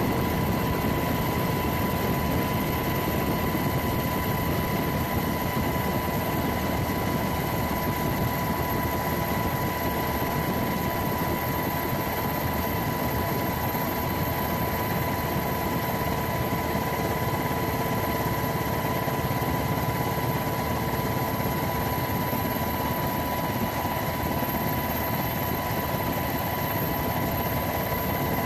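Helicopter in flight: a steady, unbroken engine and rotor noise with a constant high whine.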